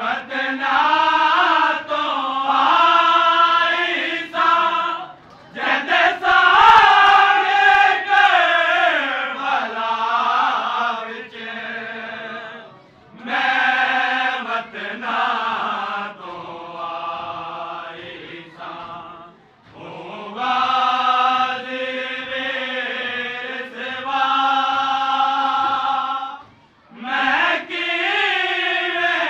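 A group of men chanting a Muharram noha, a Shia mourning lament, into a microphone: a lead reciter with the others singing along. It comes in sung phrases of several seconds with short breaks between them.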